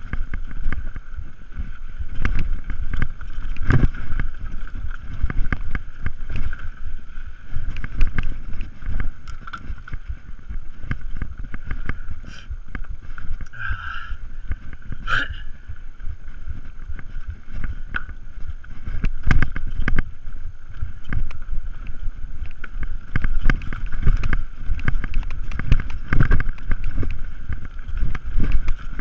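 Mountain bike ridden fast down a rough dirt trail: wind rushing over the camera microphone, with a constant rumble and many quick knocks and rattles as the bike jolts over roots and rocks.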